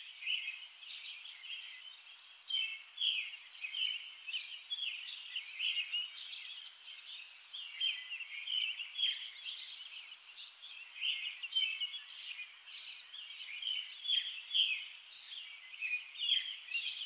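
Small birds chirping and singing, a dense, continuous run of short high calls.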